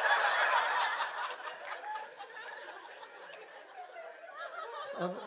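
Audience laughing after a punchline, loudest at the start and dying down over the next few seconds.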